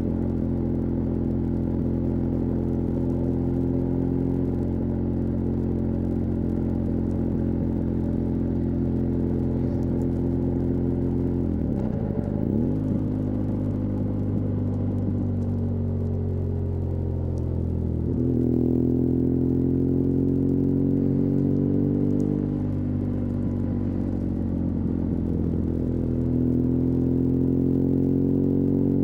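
BMW R1200GS LC Adventure's liquid-cooled boxer twin running under way. It holds a steady note, then dips briefly about twelve seconds in. The note falls as the bike slows, then climbs from about eighteen seconds with a drop near twenty-two seconds as it shifts up, and rises again near the end.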